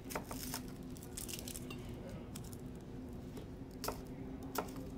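Chef's knife cutting an onion on a wooden cutting board: a few quick knocks of the blade on the board near the start and two more near the end, over a steady low hum.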